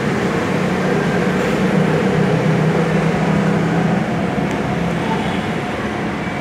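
Metro station escalator running: a steady machine hum and rumble that eases slightly about four seconds in.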